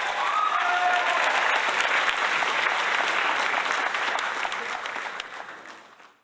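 A crowd applauding, swelling in at the start and fading away near the end, used as a sound effect to greet an award announcement.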